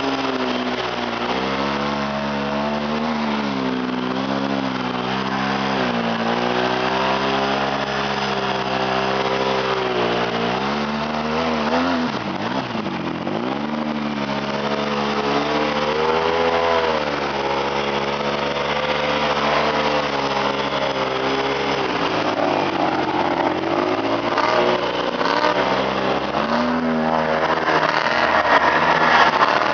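ATV engine running while riding, its revs rising and falling with the throttle. About twelve seconds in it drops low and climbs back up. A rushing noise runs underneath and grows stronger near the end.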